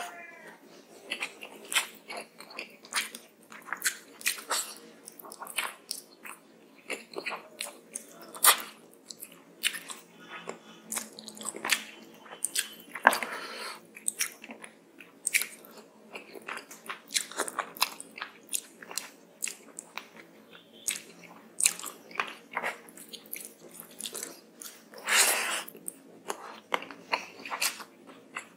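Close-miked eating sounds of a person eating rice and fish curry by hand: wet chewing and lip smacking as a quick, irregular run of clicks, with a few louder smacks along the way.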